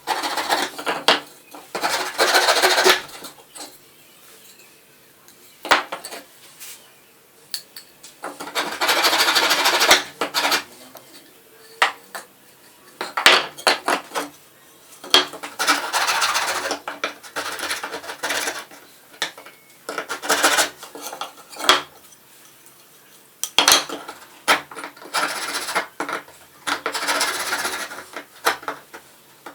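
Hand scraping and rubbing on a chair's parts in repeated strokes of a second or two, with light metal clinks and knocks from tools between them.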